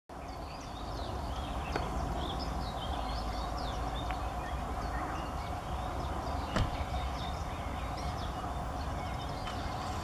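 Many short, high chirps from small songbirds over a steady low rumble, with a few sharp taps, the loudest about six and a half seconds in, from a grey-headed woodpecker pecking at tree bark.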